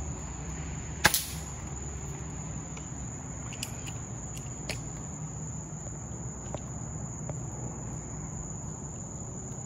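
A single sharp shot from a .22 air rifle about a second in, over a steady high-pitched insect trill, with a few faint clicks later on.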